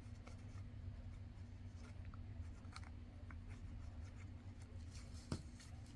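Faint light scratching and scattered small ticks of a fine-tip glue bottle's nozzle on card paper as glue is laid along a small tab, over a steady low hum; one slightly sharper tick near the end.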